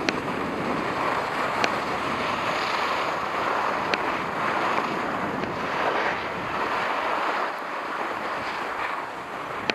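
Skis sliding and scraping over packed snow during a downhill run, the hiss swelling and easing with the turns, with wind on the microphone and a few sharp clicks.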